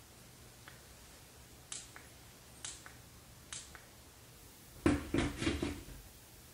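Four clicks about a second apart from the Klein Tools headlamp's push button being pressed, most of them a quick press-and-release double click. Then a louder clatter of hard plastic as the headlamp is pushed onto its mounting clip on the polycarbonate hard hat.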